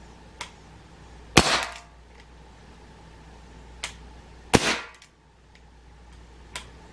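Two sharp pops from a Gamo PR-776 .177 CO2 pellet revolver firing, about three seconds apart, each with a short tail. A faint click comes shortly before each shot.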